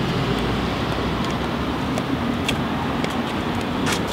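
Steady outdoor street ambience: an even rushing background noise, with a few faint sharp clicks.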